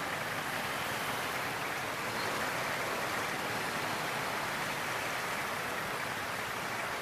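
Steady, even rushing noise of wind and traffic on the camera microphone while riding a motorbike through city streets, with no distinct events.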